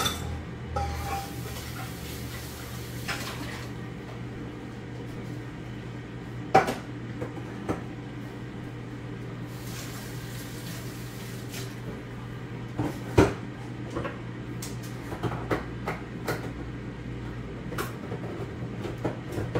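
Kitchen clatter: scattered knocks and clinks of pots, dishes and utensils and a cupboard being handled, a dozen or so sharp strikes spread out and bunching up near the end, over a steady low hum, with two stretches of hiss.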